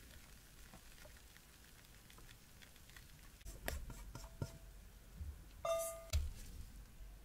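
Thick chocolate sponge batter pouring in a thin stream onto a parchment-lined sheet pan, with faint soft pattering and ticks. In the second half come louder clicks and knocks, then a brief ringing squeak and a low knock near the end.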